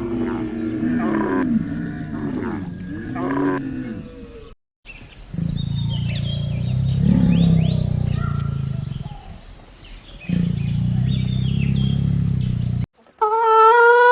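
Animal calls in several clips cut together: first pitched calls that bend up and down, then, after a brief gap, a low rumbling call with short high chirps over it, and near the end a quick run of clucking.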